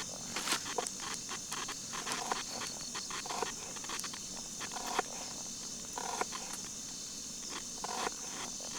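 Wood campfire crackling with scattered sharp pops at irregular intervals, over a steady high chirring of crickets.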